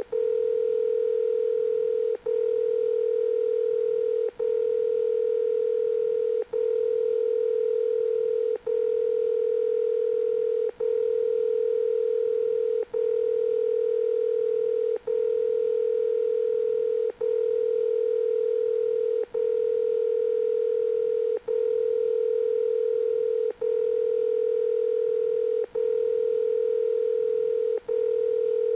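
Electronic telephone ring tone: one steady pitched tone held almost without pause, broken by a very short gap about every two seconds.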